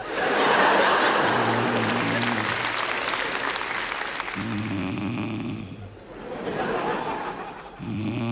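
Loud snoring: a long, rough, rasping breath for about four seconds, then deep pitched snores with noisy breaths between them, about one every two to three seconds.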